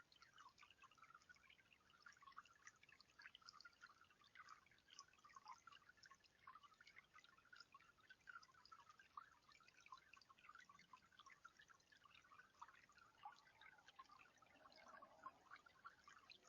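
Faint water trickling and dripping in a bird bath, a steady dense patter of small drops.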